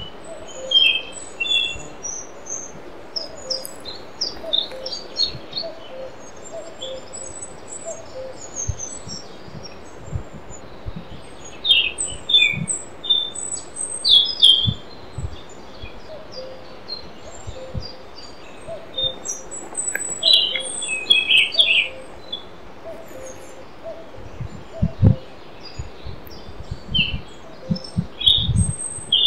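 Forest ambience: several songbirds chirping and singing in short, scattered phrases, with a fainter lower call repeating in the background and occasional low thuds.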